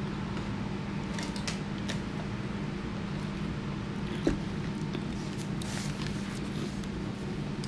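A plastic fountain-drink cup set down on a table with one sharp knock about four seconds in, followed by paper wrapper rustling as a sub sandwich is picked up. A steady low hum runs underneath, with a few small clicks in the first two seconds.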